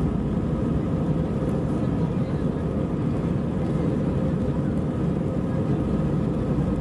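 Steady cabin noise of an Airbus A320 moving along the ground, heard from inside the cabin: an even, deep rumble of engines and rolling, with no sudden events.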